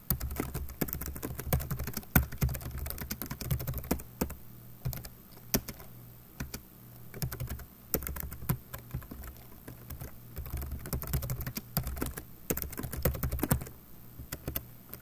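Typing on a computer keyboard: runs of quick keystroke clicks with short pauses between them.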